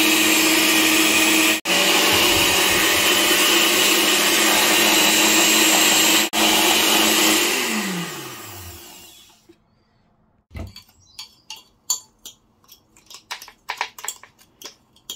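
Countertop blender grinding Lotus Biscoff biscuits into fine crumbs: a steady loud whir, broken twice for an instant. About eight seconds in the motor is switched off and winds down with a falling pitch. After a pause come a thump and a run of light clinks and taps as the crumbs are knocked out of the glass blender jar into a glass bowl.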